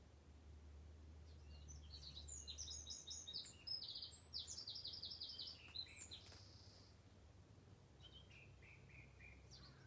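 A songbird singing: a rapid phrase of quickly repeated high notes lasting a few seconds, then a shorter, fainter phrase near the end, over a low steady rumble.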